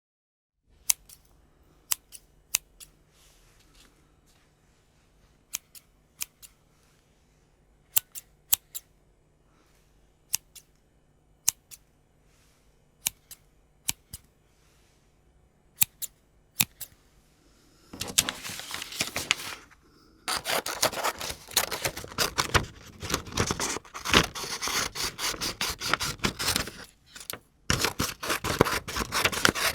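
Scissors snipping. For about the first eighteen seconds there are sharp single snips, often in twos or threes, with pauses between them; then the scissors cut rapidly and continuously, with two short breaks.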